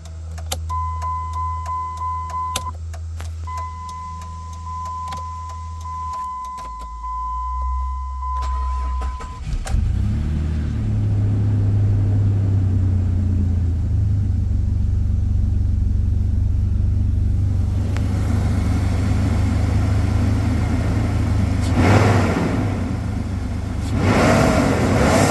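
A steady electronic warning chime-tone with scattered clicks. About nine seconds in the Jeep Liberty's 3.7-litre V6 starts and settles into a steady idle, with two brief surges near the end.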